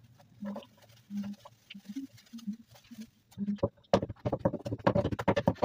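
Wooden spoon stirring and mashing a potato mixture in a large pot: a fast, uneven run of knocks and scrapes that starts about three and a half seconds in. Before it come a few short, faint, low-pitched sounds.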